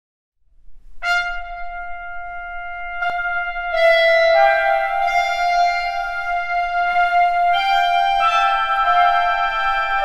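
Orchestral wind instruments opening a piece: one long held note about a second in, joined near four seconds by more wind players in overlapping sustained notes that step up and down in pitch, with a quick rising run near the end.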